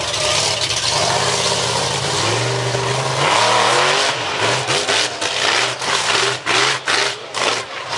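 Monster truck's big engine revving hard, its pitch climbing about two seconds in as it drives at the cars. It then surges in short, choppy blips, roughly two a second, as it climbs onto the row of cars and runs over them.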